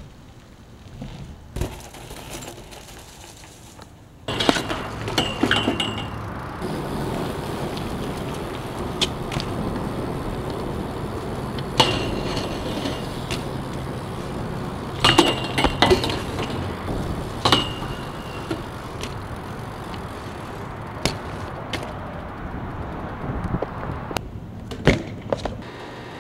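BMX bike riding on concrete: a steady rolling rush, with sharp metal clanks from landings and hits, several of them ringing briefly afterward. It is quieter for the first few seconds, and the rush starts suddenly about four seconds in.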